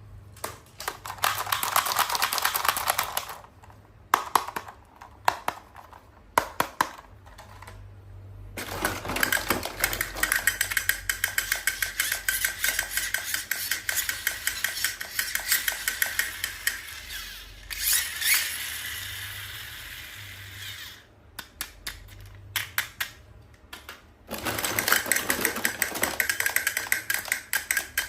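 Hands handling toy packaging: long runs of dense, rapid crackling clicks, with a few separate sharp taps between them.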